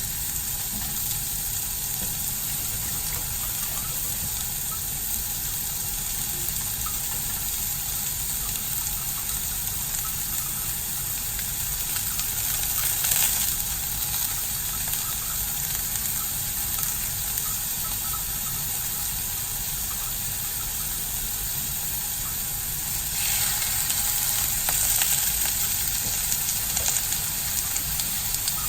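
Minced chicken breast patties sizzling as they pan-fry in a little oil: a steady frying hiss that swells briefly about halfway and grows louder for the last few seconds.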